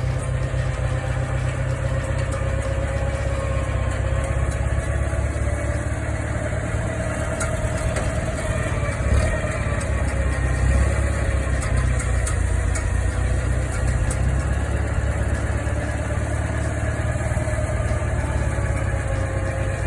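A motor vehicle's engine running steadily with a strong low rumble, its pitch drifting slightly up and down as the speed changes a little.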